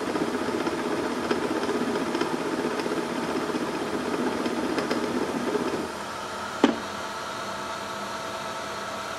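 Machine spindle running while a small drill bit bores a 1/8-inch pin hole in a chuck-held part. The cutting noise runs for about six seconds and then stops as the bit comes out of the work, leaving the steady hum of the running motor. A sharp click follows shortly after.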